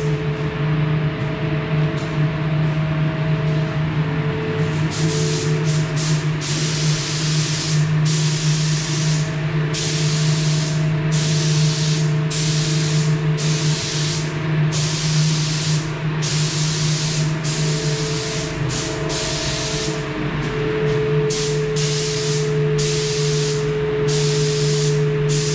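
Gravity-feed spray gun hissing as it lays a coat of clear lacquer onto a bicycle frame. The hiss starts about five seconds in and comes in passes broken by short pauses, over a steady low hum.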